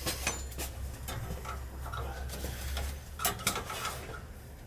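Scattered light clicks and taps of hands handling tools and parts at a boiler, over a low steady hum that stops about three seconds in.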